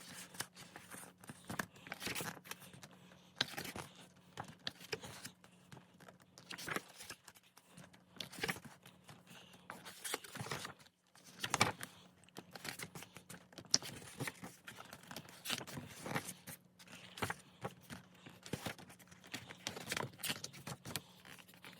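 Pages of a photo book being turned one after another: soft paper rustles and flaps, one every second or two.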